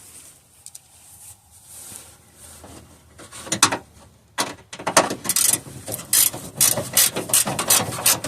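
Hand ratchet wrench clicking in quick repeated strokes, about three a second, as a bolt is backed off; the run starts about halfway in, after a couple of first clicks.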